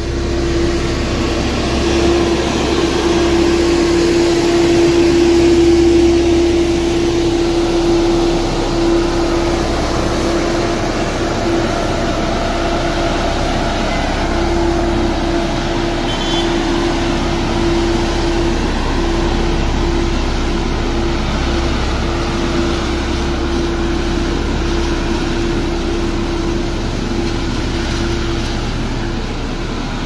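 Diesel engine of a road roller running steadily as it drives over the graded earth road, a held drone over a low rumble.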